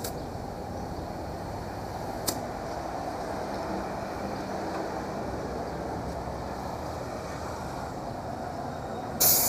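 Steady street traffic noise with a single click about two seconds in, then a loud, short hiss of escaping air near the end.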